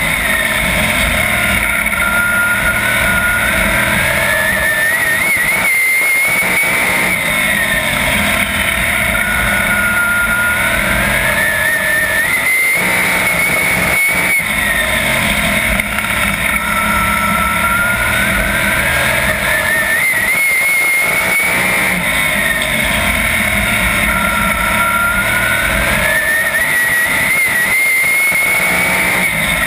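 410 sprint car's V8 engine heard on board at racing speed. The revs fall as the car goes into each turn and climb again down each straight, about every seven seconds.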